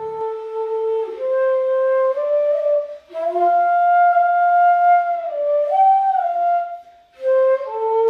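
Background music: a solo flute melody of long held notes, in phrases with short breaks about three and seven seconds in.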